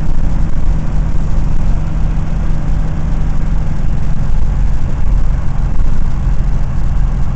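Cummins 5.9 diesel engine of a 2001 Blue Bird All American school bus running steadily while the bus drives, heard from inside the bus as an even low drone with road noise.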